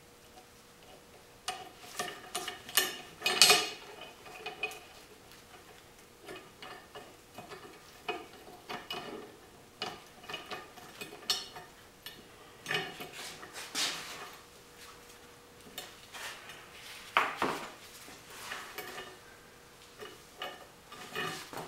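Steel parts clinking and scraping on a steel bench top as a round steel fitting is set on a steel plate and nudged into place with tongue-and-groove pliers: irregular knocks and scrapes with a metallic ring, loudest about three seconds in and again near seventeen seconds.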